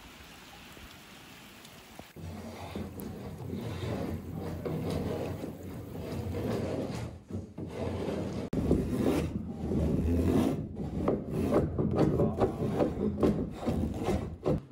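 Soft rain hiss at first; then, about two seconds in, a curved two-handled drawknife scraping and shaving the inside of a wooden dugout canoe hull in repeated strokes. The strokes grow louder in the second half, about three a second near the end.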